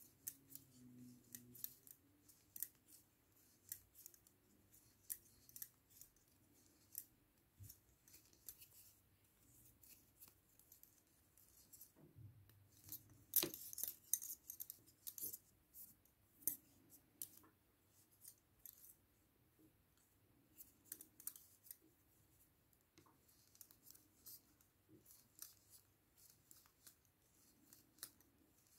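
Metal double-pointed knitting needles clicking and tapping against each other as stitches are worked round a five-needle set, faint and irregular, with a louder flurry of clicks about halfway through.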